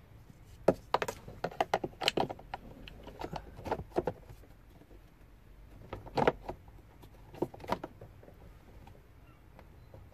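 Plastic clicks, taps and knocks as a cabin pollen filter is pushed and fitted up into its housing under a VW T5 Transporter's dashboard, in a few irregular clusters of sharp clicks.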